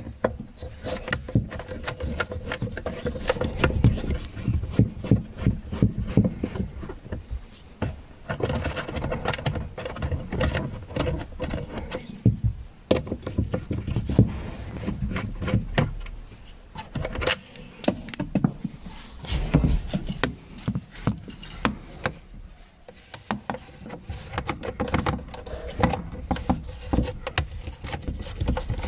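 Screwdriver turning a screw in a plastic car dashboard: irregular clicking, rubbing and scraping of the tool on the screw and the plastic trim.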